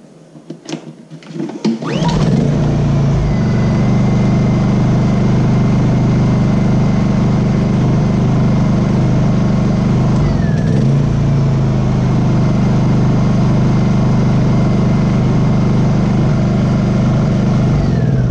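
Honda EU2000i generator's single-cylinder four-stroke engine recoil-started, catching about two seconds in, then idling at an even, steady pitch without surging, its idle jet freshly reseated. Near the end the pitch begins to fall as it is shut off.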